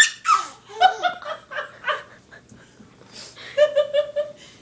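Baby laughing in short bursts, ending in a quick run of about five high-pitched 'ha' pulses.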